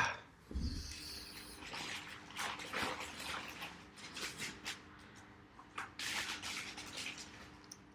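Small plastic parts bag being rummaged through: irregular crinkling and rustling with light clicks of small parts being handled.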